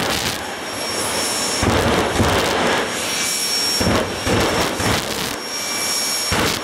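Jet funny car's jet engine running on afterburner: a loud roar with a steady high whine, surging with sharp bangs every second or so.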